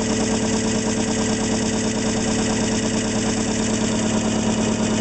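Electric generator test rig running steadily at about 550 RPM: the prime-mover motor spinning the rotor past the coils, giving a steady hum with a fast, even mechanical chatter over it.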